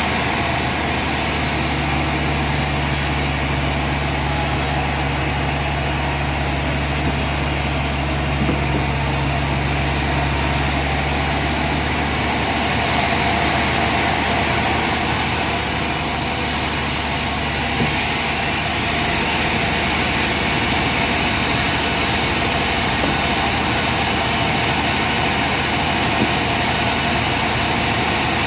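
Sawmill machinery running steadily, a continuous mechanical drone with a low hum that drops away about twelve seconds in.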